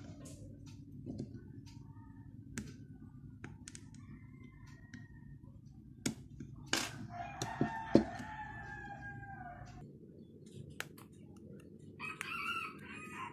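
Sharp clicks and taps of a Redmi 5 Plus's back cover being pried open at its edges. About seven seconds in, a long bird call rises over them and lasts about three seconds, and a shorter call comes near the end.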